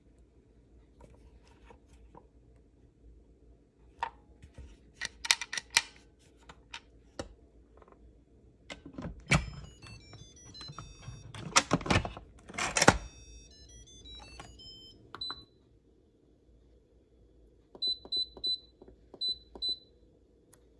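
Instant Pot IP-DUO electric pressure cooker being set up: plastic clicks and clacks as the lid and its steam-release handle are worked and the lid is twisted shut, with a short electronic jingle in the middle. Then a single beep, and after a pause five short beeps from the control panel as buttons are pressed to set the cook time.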